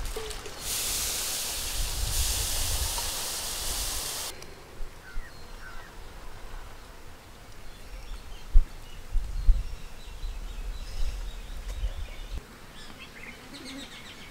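Food sizzling in hot oil for about four seconds, cutting off abruptly. Then quiet outdoor ambience with a few bird chirps and occasional low rumbles.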